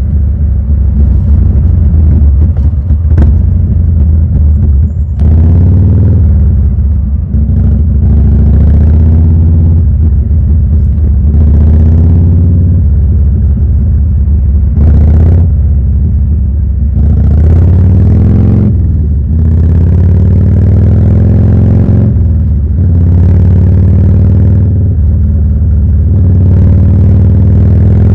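Harley-Davidson EVO 1340 air-cooled V-twin running loudly on the road. Its pitch rises and falls again and again as the throttle is opened and rolled off.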